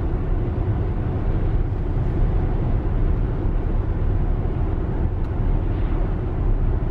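Steady tyre and road noise with a low wind hum inside the cabin of a Tesla Model X cruising on a paved road. There is no engine sound, since the car is electric.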